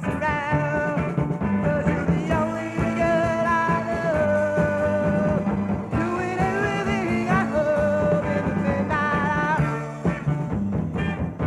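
A live 1960s rock band playing a soul number, with drums, bass, guitars and organ under a male lead vocal, heard from an old live radio-broadcast recording.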